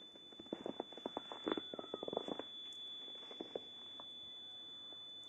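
Footsteps crunching on snow, a quick run of steps over the first two and a half seconds, with a steady high-pitched whine throughout.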